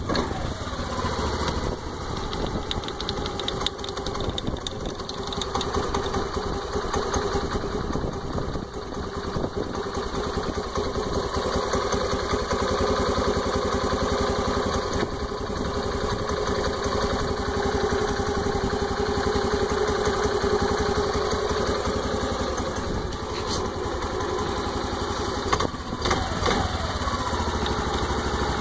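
Honda Activa 125 scooter's single-cylinder four-stroke engine idling, with a fine rapid clicking running along with it, a strange noise on a scooter with only 115 km whose source is not known. The engine speed drops back to idle near the start and changes briefly again near the end.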